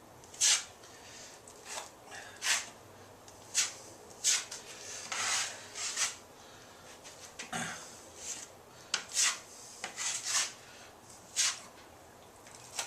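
Drywall mud (joint compound) being spread and scraped onto the wall with a taping knife: about a dozen short, irregular scraping strokes.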